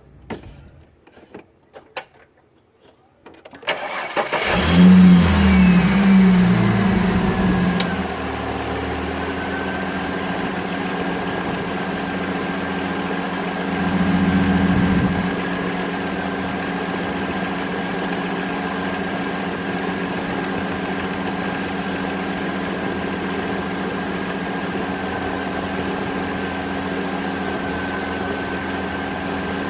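A few clicks, then the Holden VY ute's 3.8-litre Ecotec V6 starts about four seconds in. It runs at a fast, louder idle for a few seconds, then settles to a steady idle with a faint whine, rising briefly once. It is run straight after an oil change to push oil through the new filter.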